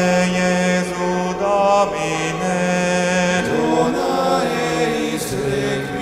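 A group of male voices singing a slow monk-style chant in harmony, holding long notes over a sustained low bass note, the chords shifting about two and three and a half seconds in.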